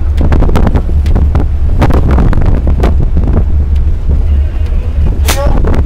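Strong wind buffeting the microphone on a ship at sea: a heavy low rumble with irregular crackling pops. A brief loud voice cuts through near the end.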